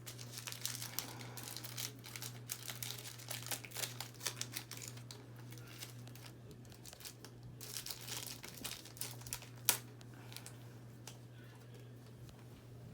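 Trading card pack's wrapper crinkling and crackling as it is torn open and the cards are handled, dense for the first half and sparser after, with one sharp click about ten seconds in. A steady low hum runs underneath.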